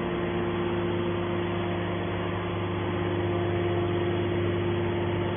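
Hydraulic can baler's power unit running with a steady hum and a constant tone.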